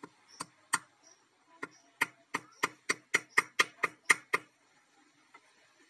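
A run of about a dozen light, sharp taps on a metal part, as from a small hammer, coming faster and louder around the middle and stopping a little past four seconds in.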